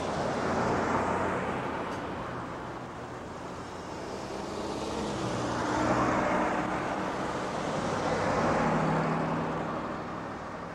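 Heavy lorry driving along an unpaved desert track: a low engine drone under a rushing tyre and road noise that swells and fades about three times as the truck comes on.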